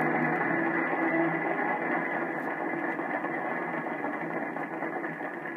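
Studio audience applauding, heard through an old band-limited radio broadcast recording, slowly dying away.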